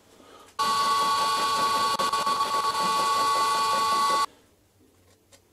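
Lathe-driven 80 mm indexable face mill taking a very light pass across a steel block: a steady whine with several held tones. It starts abruptly about half a second in and stops abruptly about four seconds in.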